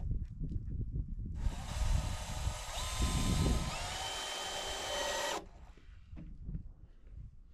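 Cordless drill running at the wall's bottom plate for about four seconds, starting about a second and a half in and cutting off suddenly, with a whine that steps up in pitch partway through.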